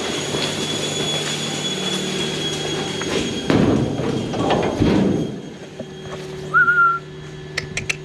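Milking parlour machinery running with a steady hum and hiss, broken about three and a half seconds in by a second or two of loud rushing noise. Near the end comes one short whistle that rises and then holds, followed by a few sharp ticks.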